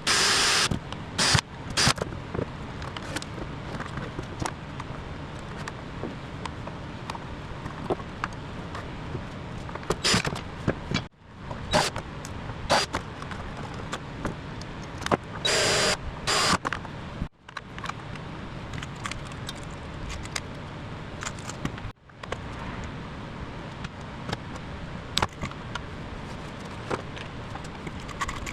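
Power drill drilling out rivets in several short bursts, with clicks and knocks from handling the metal parts between bursts over a steady background hum.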